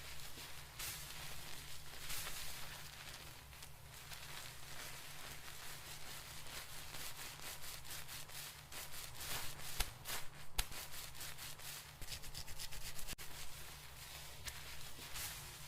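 Hands rubbing and scrubbing through hair and scalp, an irregular run of dry scratchy rubbing strokes, over a low steady hum.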